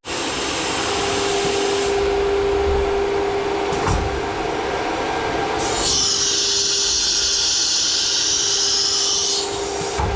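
CNC milling machine running, with a steady spindle whine over machine noise. A loud high hiss comes in for about three and a half seconds partway through.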